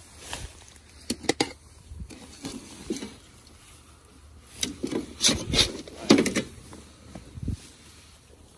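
A piece of scrap sheet tin being levered up off the ground with a metal snake hook. A few sharp clicks come about a second in, then scraping and rustling through weeds and leaf litter, loudest in the middle, and a dull thump near the end.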